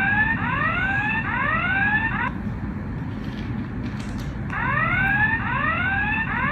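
Granding FA2000 access control terminal sounding its anti-tamper alarm: a fast series of rising, siren-like electronic whoops, about two a second, in two bursts with a short pause between. It is set off by the anti-tamper button on the back popping up while the unit is off its wall mount.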